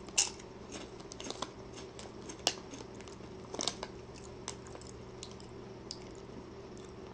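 Sriracha-flavoured Lay's potato chip being bitten and chewed: irregular sharp crunches, thinning out after the first few seconds, over a faint steady hum.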